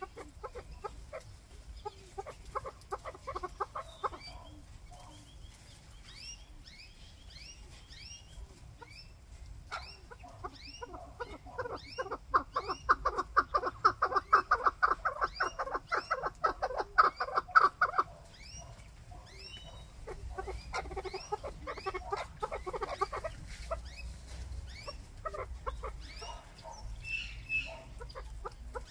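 Chukar partridges calling: bouts of rapid, repeated clucking chuck notes, the loudest and fastest run lasting several seconds in the middle, with shorter, quieter bouts before and after.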